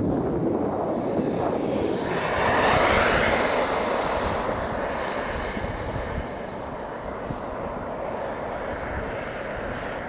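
Radio-controlled model jet's engine whining with a rushing roar as it lands and rolls out on the runway. The roar swells about three seconds in and then eases off while the high whine holds steady.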